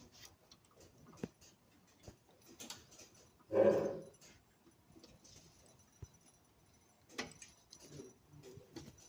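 Scattered light clicks and knocks of metal sander parts being worked back into a gouged, distorted mounting hole. About three and a half seconds in there is one short, louder pitched sound.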